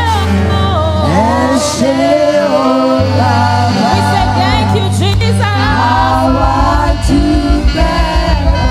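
Gospel praise-and-worship singing with band accompaniment: voices over sustained low bass notes, with a steady pulsing beat coming in about six seconds in.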